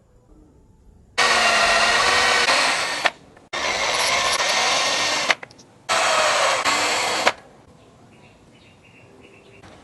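A handheld power tool run in three bursts of about two seconds each, starting and stopping sharply, its whine wavering in pitch as it works.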